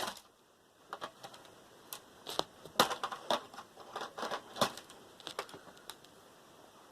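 Irregular clicks, taps and scrapes of thin sheet metal and circuit-board parts being prised and worked off a computer motherboard, with a few louder snaps about three and four and a half seconds in.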